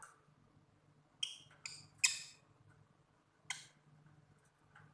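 Lovebird giving four short, shrill squawks while held for a leg prick, the loudest about two seconds in.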